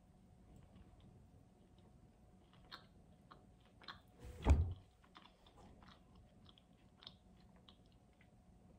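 Person chewing a bite of a thick, soft cookie with faint, scattered wet mouth clicks, and one louder short mouth sound about halfway through.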